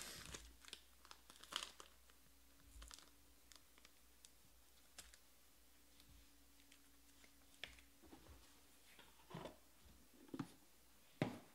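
Faint clicks and crinkles of a trading card and its clear plastic holder being handled, with a few sharper taps near the end.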